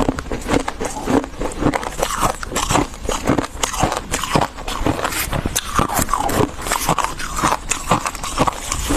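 Freezer frost being chewed close to the microphone: a dense, continuous run of crisp crunches, several a second.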